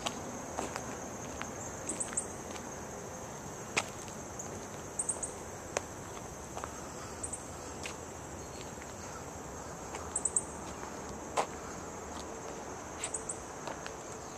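Irregular footsteps scuffing and crunching on gritty asphalt strewn with broken glass, a sharp step every second or two, over a steady high-pitched insect chorus.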